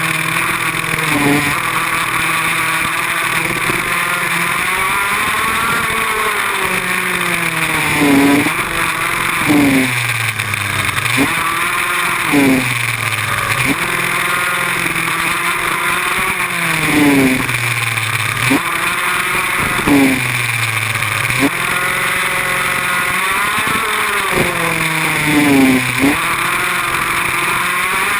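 Go-kart engine heard from on board the kart, revving up along the straights and dropping off into the corners, its pitch falling and climbing again every couple of seconds.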